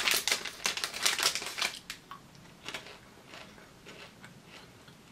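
A small popcorn packet crinkling as it is opened and handled, densest and loudest for about the first two seconds, then fainter scattered crackles.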